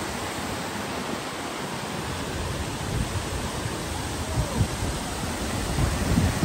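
Mountain stream rushing and cascading over rocks and a small waterfall: a steady, even rush of water. A few low bumps come through near the middle and the end.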